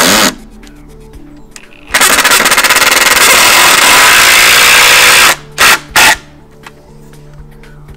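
A Ryobi 18V brushless impact driver is hammering as it drives into the top of a wooden deck rail. A burst ends just after the start, then a long run of about three seconds, then two quick short bursts. Background music plays underneath.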